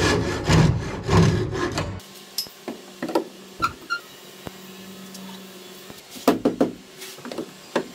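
Several loud scraping strokes of a hand tool across wood in the first two seconds, then scattered light wooden knocks and clatter over a steady low hum.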